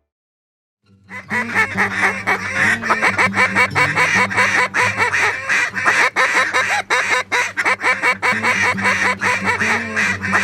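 Rapid, continuous duck quacking starting about a second in, many calls overlapping, over a low steady drone.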